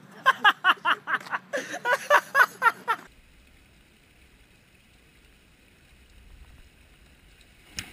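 People laughing hard in quick, even bursts for about three seconds, then it cuts off to a faint low rumble and hiss. A single sharp click near the end.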